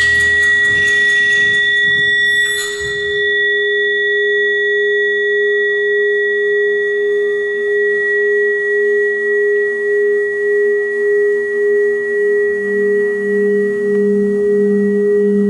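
Music of sustained pure tones: a high tone and a middle tone held steady, with a low noisy texture fading out in the first seconds and a short sweep about two and a half seconds in. From about halfway the sound wavers in a slow pulse, about one and a half beats a second, and a lower tone joins near the end.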